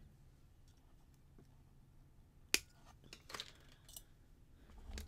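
Small metal clicks and ticks of jewelry wire and a metal pendant being wrapped and handled by hand: one sharp click about two and a half seconds in, then a few fainter ticks.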